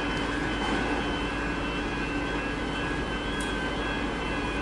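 X'Trapolis electric suburban train approaching the platform: a steady running noise with several steady high whining tones over it.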